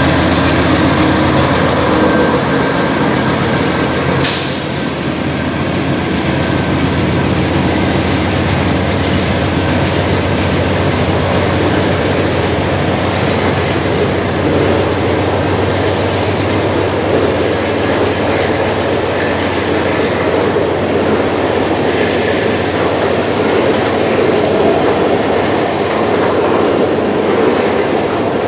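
Freight train passing close by: a diesel locomotive's engine runs for the first few seconds, with a brief hiss about four seconds in. Then a string of tank cars rolls past, steel wheels on rail making a steady rolling rumble.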